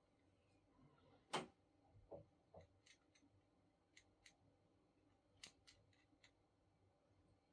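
Near silence broken by scattered faint clicks and light taps, the clearest one about a second and a half in.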